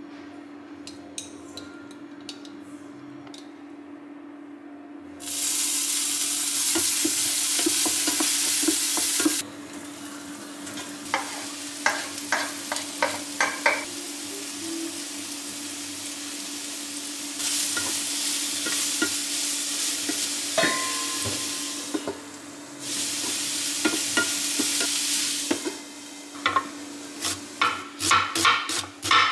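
Minced garlic and then julienned Korean zucchini sizzling in olive oil in a frying pan, in three loud stretches, with a wooden spatula scraping and knocking against the pan between them, over a steady low hum. Near the end, a knife slicing an onion on a wooden board in quick knocks.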